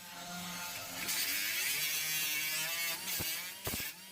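Power grinder grinding the sheet-metal edges of a car floor pan down to bare metal for welding, a harsh hiss with a whine that wavers as the load changes. It drops out briefly near the end, with a few sharp clicks.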